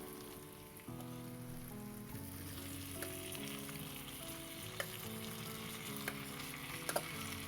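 Fish frying in vegetable oil with onions and pepper in a pan, a steady sizzle, with a few clicks of a spoon stirring against the pan in the second half. Soft background music with held notes plays underneath.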